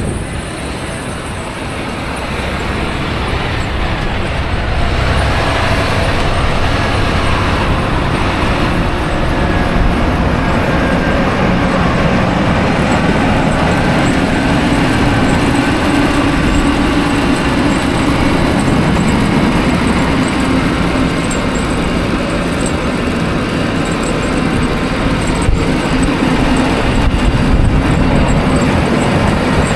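Steady vehicle noise: a low engine rumble under a rushing noise, swelling over the first few seconds and then holding steady.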